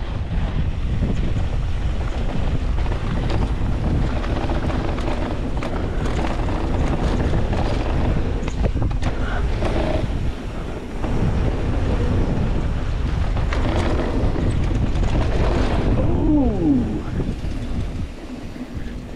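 Wind buffeting the microphone of a handlebar-mounted action camera, over mountain bike tyres rolling fast on a dry dirt trail. A brief falling squeal near the end.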